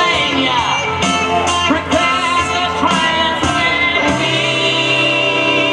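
Rock-and-roll song with singing over guitar and other instruments, a long note held from about four seconds in.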